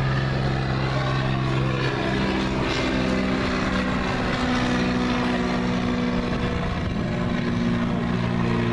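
Single-engine propeller light aircraft flying past, its engine and propeller giving a steady droning hum whose pitch shifts a little as it goes.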